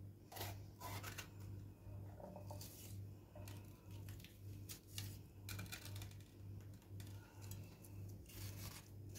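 Knife cutting a red capia pepper by hand, coring out the seeds and slicing it into strips: faint, irregular short cuts and scrapes over a low steady hum.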